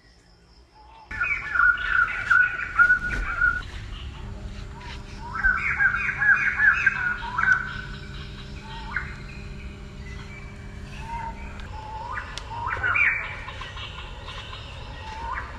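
Birds calling in quick runs of chirping notes, loudest in two bursts in the first half, followed by a few single rising calls.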